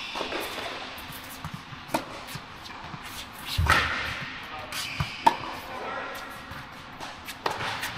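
Tennis rally on an indoor hard court: several sharp pocks of racket strings striking the ball and the ball bouncing, echoing in the large hall.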